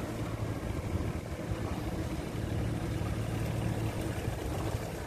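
Engines of a three-engine rice-paddy mud-leveling machine (cào cào) running steadily out in a flooded field, a low even drone.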